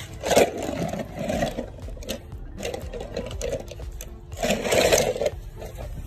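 A plastic basin holding water and toy cars being handled and moved about: irregular knocks, clicks and scraping, with two louder noisy bursts, one about half a second in and one near the five-second mark.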